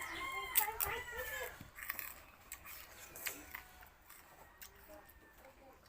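Sugarcane being bitten and chewed: a run of sharp, crunchy clicks, thinning out after the first two seconds. A brief pitched call-like voice sounds over it in the first second and a half.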